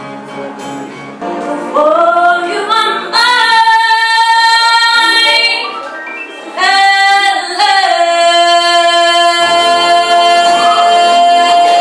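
A young woman singing solo through a handheld microphone, in a soulful style with sliding runs between notes. From about eight seconds in she holds one long, steady note.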